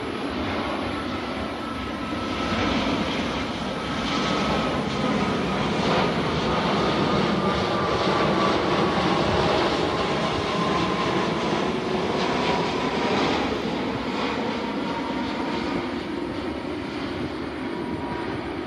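Boeing 787-10 airliner on landing approach with gear down, passing low overhead. Its jet engines give a steady rumble that swells to its loudest about halfway through and then eases off, with a thin whine falling slowly in pitch as it goes by.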